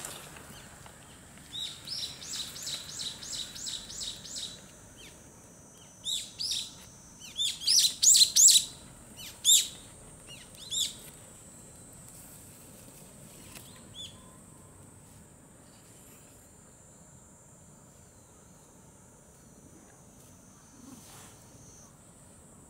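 Small bird chirping: a quick, even run of high chirps about two seconds in, then a louder, more scattered series of sharp chirps between about six and eleven seconds in, loudest around eight seconds.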